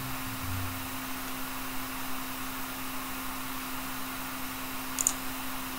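Steady low hum and hiss of room tone, with a single computer mouse click about five seconds in.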